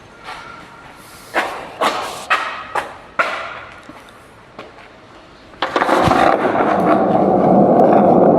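Skateboard on wet pavement: several sharp knocks in the first few seconds, then, a little past halfway, the wheels set into a loud, steady roll.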